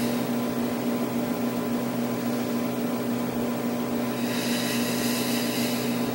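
Steady machine hum with a low, even drone. From about four seconds in, a breathy hiss of a person breathing lasts nearly two seconds.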